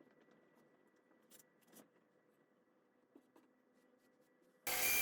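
A few faint small ticks and scrapes, then, near the end, a power saw cuts in abruptly at full speed, running steadily with a high whine.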